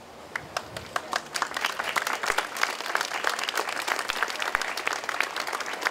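Crowd applauding: many hand claps that build up about half a second in and then go on steadily.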